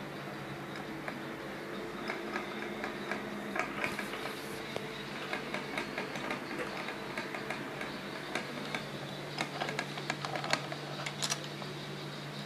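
Small irregular clicks and taps as parts of a disassembled Caterpillar 3412 diesel fuel injection pump are handled on a table, over a steady low hum.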